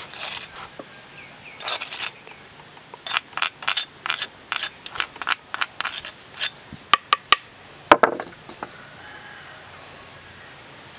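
Metal spoon scraping and clinking against a small ceramic bowl as granules are spooned into a wooden mortar: a quick run of short scrapes, about two a second, with one sharper knock near the end.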